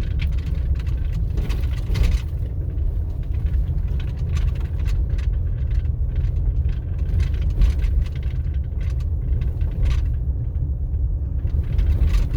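Vehicle driving on a rough dirt road: a steady low engine and tyre rumble with frequent small knocks and rattles from the uneven surface.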